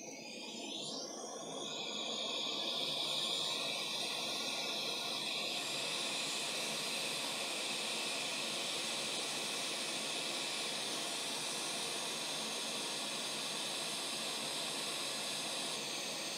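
Hot air rework station blowing a steady hiss of hot air over a RAM module's memory chips to reflow their solder. The rush builds over the first couple of seconds, then holds steady.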